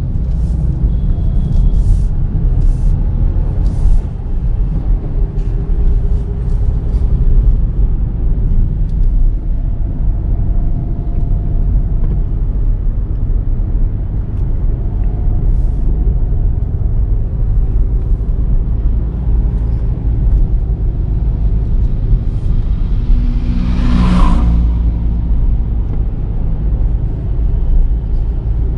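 Volkswagen Virtus GT on the move: steady low rumble of its 1.5-litre turbocharged four-cylinder engine and road noise, with a brief louder swell about 24 seconds in.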